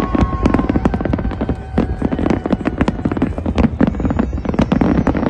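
Fireworks display going off in a dense, rapid barrage of bangs and crackles over a steady low rumble, with long steady whistles through the first few seconds.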